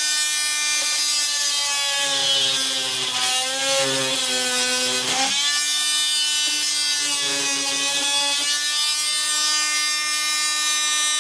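Corded handheld power tool running steadily as it cuts into the rotted, wet balsa core of a fiberglass boat engine hatch. Its pitch sags and roughens from about two to five seconds in as the blade bites into the material, with a sharp click just after, then it runs steady again.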